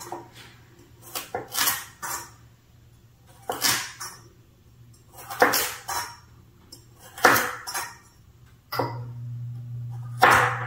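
A kitchen knife chopping through carrots onto a cutting board: about ten sharp cuts, some in quick pairs, a second or two apart. A steady low hum comes on near the end.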